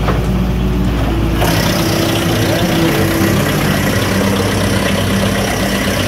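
Tractor-mounted PTO wood chipper running steadily off the tractor engine; about a second and a half in, its flywheel knives start chipping a branch fed into the infeed, adding a dense rushing noise as the chips are blown out of the discharge chute.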